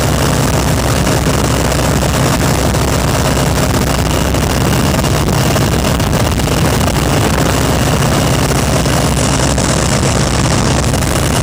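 Loud, steady drone of a WACO biplane's engine and propeller in cruising flight, heard from the open cockpit.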